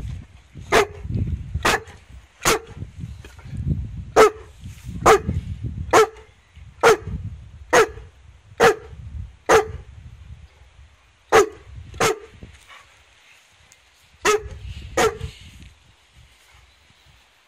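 Newfoundland dog barking: about fourteen sharp barks, roughly one a second, with a few short pauses, stopping a couple of seconds before the end.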